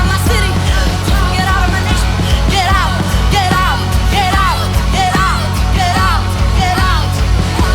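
Live worship music: a full band with a heavy, steady low end and a regular beat, and a voice singing short repeated phrases over it.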